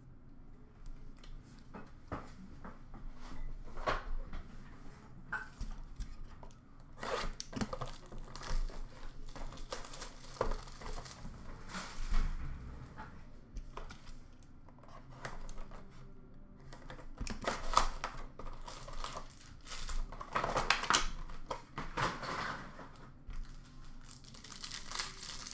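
An Upper Deck Allure hockey card box being opened and its foil packs torn open: irregular tearing and crinkling of wrappers, with short clicks and taps of cards and cardboard handled on the counter.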